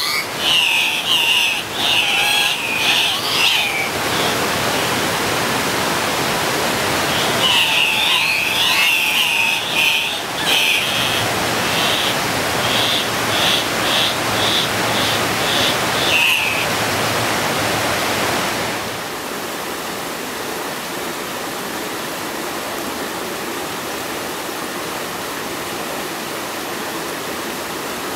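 Andean cock-of-the-rock males giving harsh squawking calls in quick, broken runs, in two spells: over the first four seconds and again from about eight to sixteen seconds. Under them is the steady rush of a stream or waterfall, which goes on alone through the last third.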